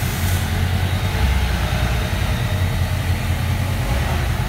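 Inline-four engine of a 2020 Honda CBR1000RR-R SP Fireblade with its factory Akrapovic exhaust, running steadily at idle-low revs as the bike pulls away slowly, with no revving.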